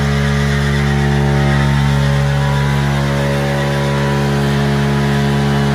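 Polaris RZR Turbo S's turbocharged twin-cylinder engine running loud at steady high revs during an all-wheel-drive burnout.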